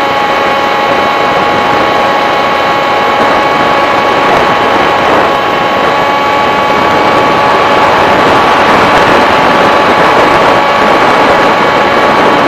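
FPV model aircraft's motor and propeller whining at a steady pitch in flight, heard with rushing air noise, loud and close to the onboard microphone.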